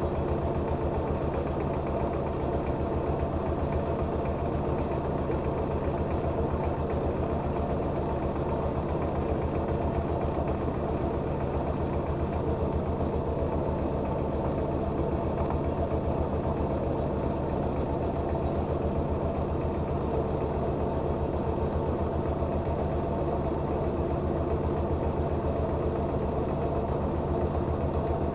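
Engine-driven rice milling machine running steadily, its engine keeping a fast, even rhythm.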